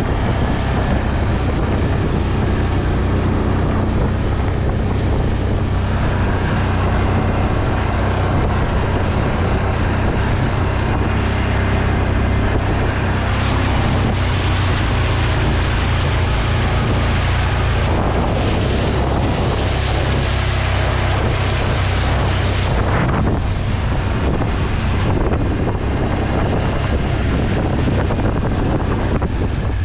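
ATV engine running steadily under load as the four-wheeler is driven through a wet field, with its pitch shifting a little now and then. Wind buffets the microphone throughout.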